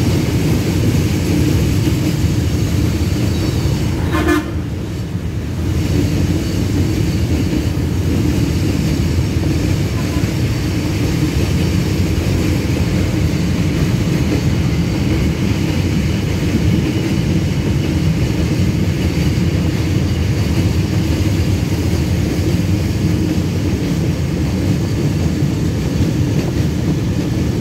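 Long freight train rolling by, a steady heavy rumble of wheels on the rails, with a locomotive horn sounding over it.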